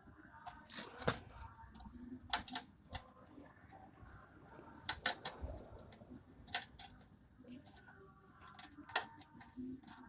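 Sharp clicks and light rattles in short clusters, every second or two, as a car wiring harness and its retaining clips are handled and worked loose by hand.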